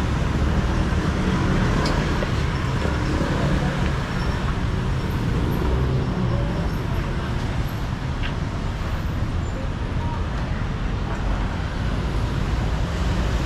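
Steady road traffic noise: a continuous low rumble of motor vehicles.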